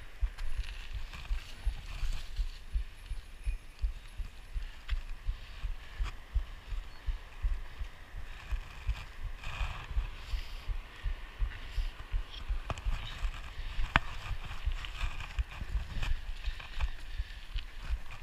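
Wind buffeting an action camera's microphone: a gusty low rumble of uneven thumps, with a few sharp clicks, the sharpest about two-thirds of the way through.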